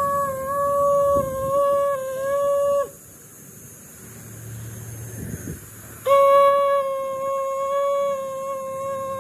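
Conch shell (shankh) blown in two long blasts, each held at one steady pitch. The first cuts off about three seconds in; the second starts about six seconds in.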